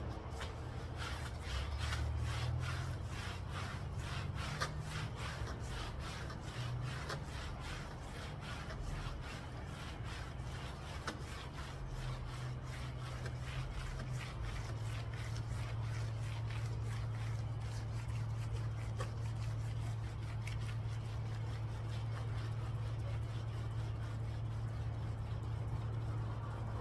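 Clay towel scratching across car paint in quick, repeated back-and-forth strokes, about two to three a second. The scratching is the sign of bonded contamination still on the paint; it fades as the surface comes clean. A steady low hum runs underneath and grows stronger about halfway through.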